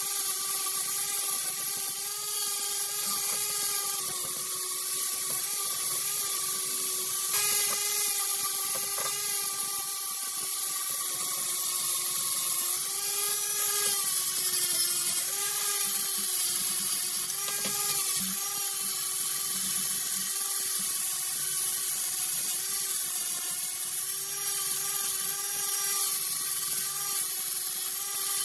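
Handheld angle grinder with an abrasive disc running continuously while grinding rust off a steel wrench, a steady motor whine whose pitch dips slightly now and then as the disc is pressed into the metal.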